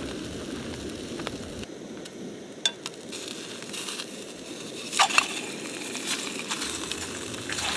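Cutthroat trout frying in hot olive oil in a pan, a steady sizzle, with a few sharp clicks or pops partway through.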